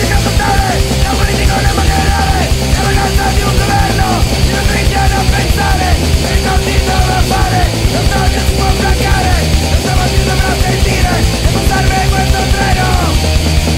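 Live rock band playing loud, with drum kit and cymbals, electric guitar, and a singer's vocals through a microphone.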